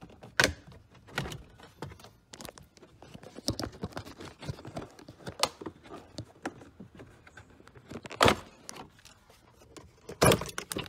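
Plastic interior trim behind the glove box of a 2006 Acura TL clicking and knocking as a panel is pushed in and worked loose by hand. An irregular string of sharp clicks and clacks, loudest about half a second in, at about eight seconds and near the end.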